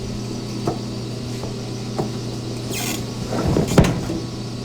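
Creaks and a few sharp clicks over a steady low hum, then a short scrape and a louder scuffle ending in a thump near the end.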